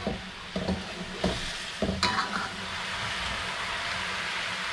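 A steel spatula knocks and scrapes against a metal wok several times, with one ringing clang about two seconds in. Then the coconut-milk rendang gravy sizzles steadily in the pan.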